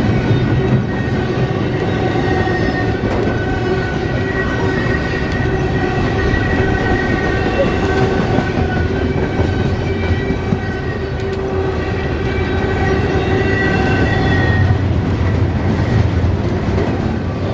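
Long CSX freight train's cars rolling past, a steady loud rumble of wheels on rail with high, steady whining tones over it.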